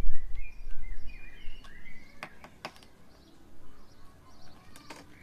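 Garden birds chirping in short gliding calls, with a low rumble at the very start. A few sharp clicks come about two seconds in and again near the end.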